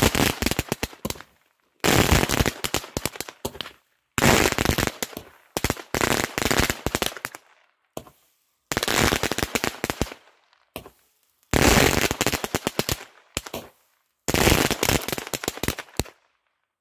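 A small seven-shot crackling mine firework cake firing. A shot goes off every two to three seconds, and each one throws a burst of dense crackle that lasts a second or two. The last burst stops about a second before the end.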